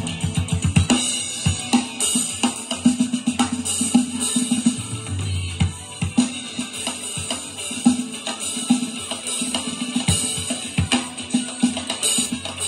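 Alesis Strata Prime electronic drum kit being played, a steady beat of drum hits with cymbals.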